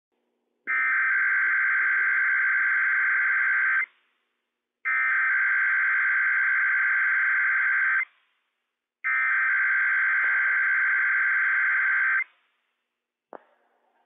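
Emergency Alert System SAME header on NOAA Weather Radio: three identical buzzy digital data bursts of about three seconds each, with a second of silence between them. They encode the start of the alert, here a Required Weekly Test. A short click follows near the end.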